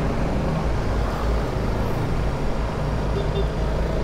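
Honda CRF300 Rally's single-cylinder engine running steadily while riding along a street, heard from the bike's own microphone as a dense, even rumble mixed with road and traffic noise.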